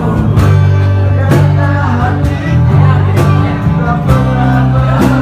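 Slow romantic song playing: held bass notes and a steady beat about once a second, with a melody line over them.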